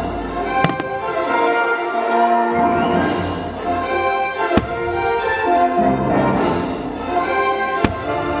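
Orchestral fireworks-show music with brass, played loud, broken by three sharp firework bangs, the loudest about halfway through.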